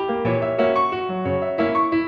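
Background piano music: an even run of notes over lower bass notes.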